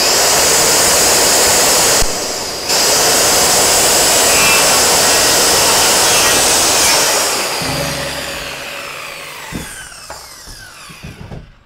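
DeWalt circular saw starting up and cutting across a wooden board, with a brief dip about two seconds in. After about seven seconds the saw is released and the blade winds down, falling in pitch and fading.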